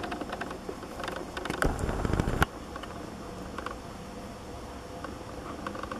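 Dry twigs crackling and rustling close to the microphone as it moves through brush, with a loud low rumble on the microphone for under a second that cuts off abruptly about two and a half seconds in; after that, a quieter steady outdoor background with a few faint clicks.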